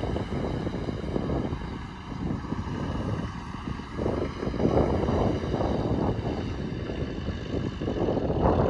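Heavy diesel earthmoving machinery running steadily, a deep rumble that swells and eases in loudness as it works.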